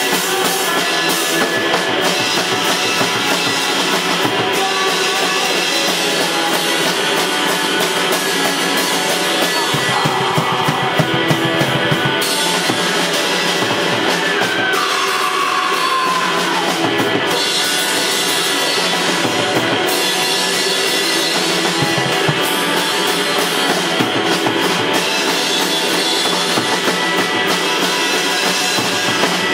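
Rock band playing an instrumental passage live: drum kit and guitar, with a high note gliding downward about halfway through.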